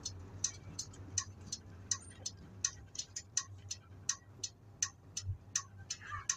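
Bus turn-signal relay clicking steadily, about three ticks a second, over the low hum of the Nissan Diesel bus's diesel engine. There is one low thud about five seconds in.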